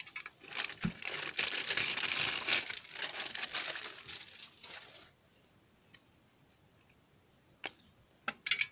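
Plastic packaging crinkling and rustling for about four seconds as it is handled, then a few light clicks near the end.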